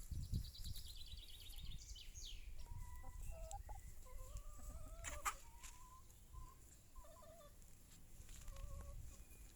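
Chickens clucking softly, a scatter of short calls through the whole stretch.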